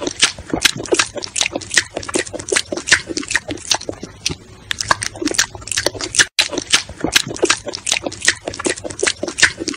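An otter making a rapid string of short, sharp chirps and squeaks, several a second, with a brief break a little after six seconds in.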